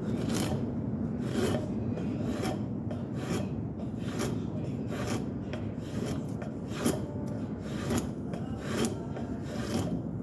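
Handmade spokeshave with a blade cut from an old saw blade, shaving wood in short repeated strokes, about one a second.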